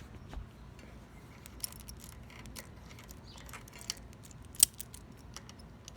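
Scattered light metallic clicks and clinks of small tools or parts being handled, with one sharper click about four and a half seconds in.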